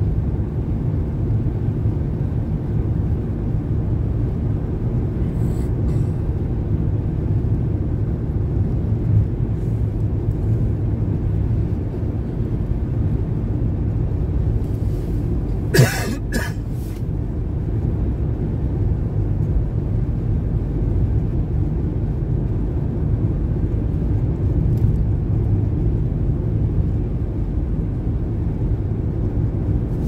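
Car driving on a snow-covered highway, heard from inside the cabin as a steady low road and engine rumble. A person coughs once about halfway through.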